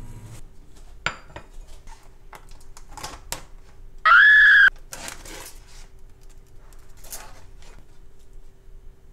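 A microwave's running hum stops just after the start and a sharp click follows about a second in, then a plastic takeout container and its film are handled with clicks and crinkling rustles. About four seconds in comes the loudest sound, a short high-pitched yelp of "hot!" as the container burns the fingers.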